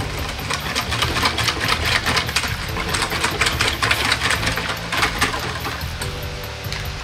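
Wire balloon whisk beating kakiage tempura batter (flour and egg water) in a metal mixing bowl: rapid clicking and scraping strokes of the wires against the bowl, easing off near the end.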